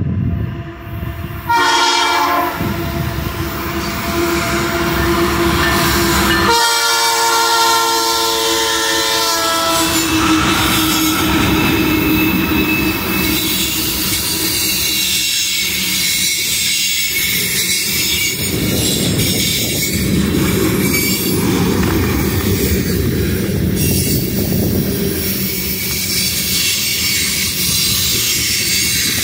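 Canadian Pacific freight train's locomotive horn sounding a short blast, then a longer one a few seconds later as the locomotives approach and pass. A long string of loaded tank cars then rolls by loudly, with clickety-clack from the rail joints and a high wheel squeal.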